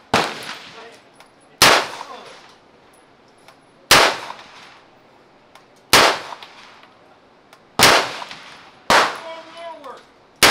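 Seven single gunshots from a handheld firearm, fired one at a time at an uneven pace of one every one to two seconds, each followed by an echo that trails off.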